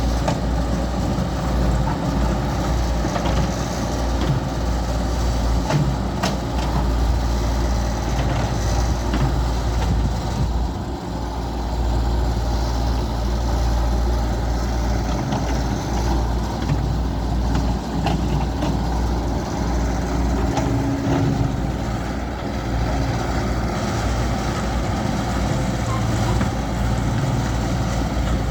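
Caterpillar excavator's diesel engine running steadily at work, with a few scattered knocks.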